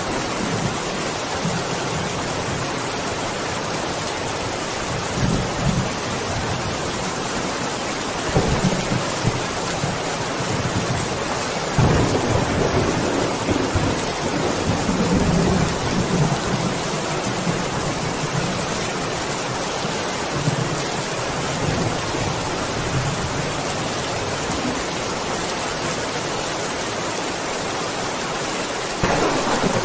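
Rain falling steadily, with thunder rumbling low several times. The thunder is strongest from about twelve to seventeen seconds in and swells again near the end.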